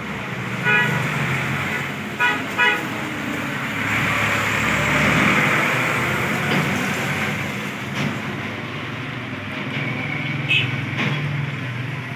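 Pedestal fan running after its bearing has been adjusted: a steady rush of air over a low motor hum, without the odd noise it made before the fix. Three short beeps cut in, about a second in and twice near two and a half seconds.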